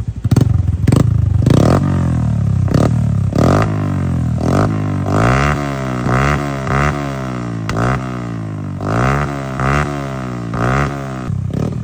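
Suzuki Smash single-cylinder four-stroke underbone motorcycle fitted with a Kvin aftermarket exhaust pipe, idling and being revved in a dozen or so quick throttle blips, each rising and falling in pitch.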